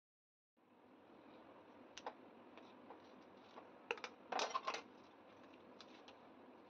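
Scissors snipping the string tied around a banana-leaf-wrapped roasted pomfret: scattered light clicks, loudest in a quick cluster a little past four seconds in. Near the end the charred banana leaf is handled as it is peeled open.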